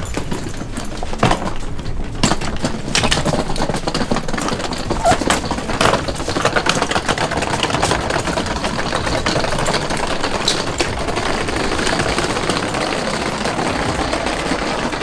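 Wheeled suitcases rolling over brick paving: a continuous rapid clatter of small clicks as the wheels run over the joints.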